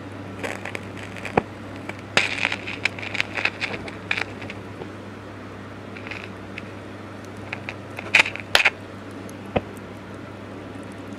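Irregular crackles and sharp pops from an electric clothes iron's heating element arcing as it burns out on 240 V with its thermostat bypassed, over a steady low hum. The crackles come in a dense run a couple of seconds in, and two loud pops follow close together later on.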